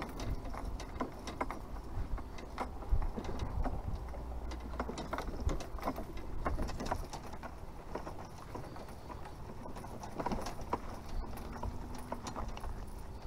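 Footsteps and knocking of carried gear while walking, about two knocks a second, over a low steady rumble.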